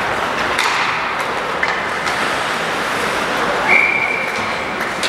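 Ice hockey rink noise: a steady wash of skating and crowd sound with a few sharp clacks of sticks and puck. About three and a half seconds in, a referee's whistle sounds one steady note for about a second, stopping play.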